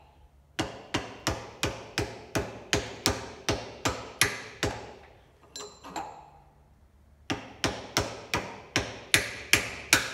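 Hammer blows on a Bridgeport milling machine spindle from above, driving it down out of the head: about three sharp, ringing strikes a second. The strikes stop for about two seconds just before the middle and then resume.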